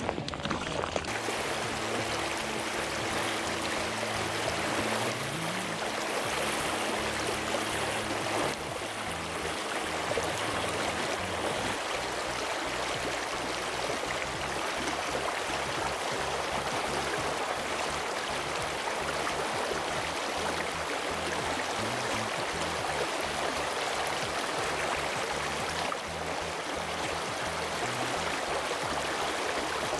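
Steady rush of a shallow river's current flowing over a rocky riffle, an even wash of water noise.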